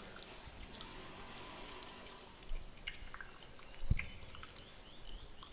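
Close-miked ASMR touch sounds: fingers scratching and rubbing over beard hair and skin, heard as faint, scattered small clicks and crackles. A soft thump about four seconds in is the loudest moment.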